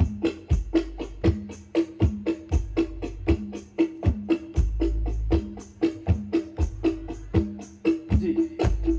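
Hadroh percussion ensemble of frame drums and a deep bass drum playing a fast, steady rhythm through a large sound system during a sound check. Sharp hand-drum strikes come several times a second over regular deep bass hits that ring on.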